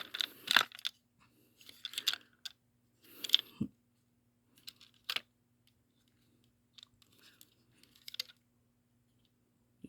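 Plastic toy train engine and its packaging being handled: scattered small clicks, taps and crackly rustles, with the louder rustles near the start and about three seconds in.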